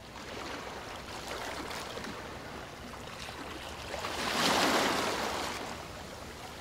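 Ocean surf washing in, a steady rush of water with one wave swelling and breaking about four seconds in, then easing off.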